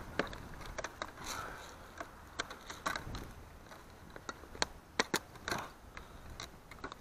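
Irregular clicks and light scrapes of a plastic 6x6 RC truck handled in the hands, its wheels and axles turned and worked while tangled fishing line is picked off them.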